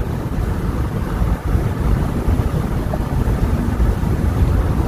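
Steady wind noise on the microphone mixed with the low road rumble of a moving car.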